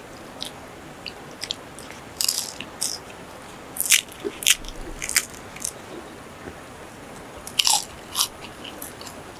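Close-up eating sounds: crisp bites and crunching as people chew food taken by hand, a dozen or so short crunches in loose clusters, the sharpest about two, four, five and eight seconds in.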